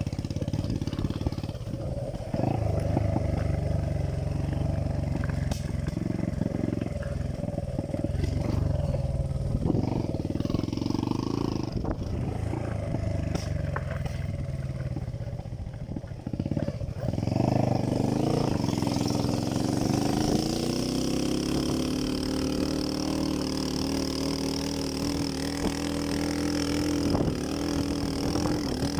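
Dirt bike engine running under load on a rough dirt trail, with knocks and rattles over the bumps in the first half. About 18 seconds in the engine revs up in a rising whine and then holds a steady higher pitch.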